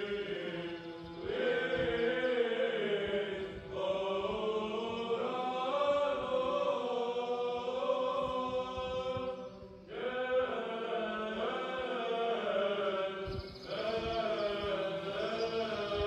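Choral chanting in long sustained phrases, with short pauses between them.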